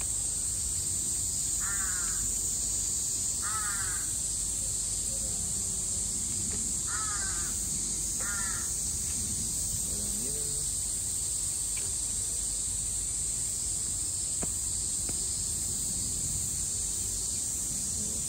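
Crows cawing four times, in short harsh calls in the first half, over a steady high-pitched hiss.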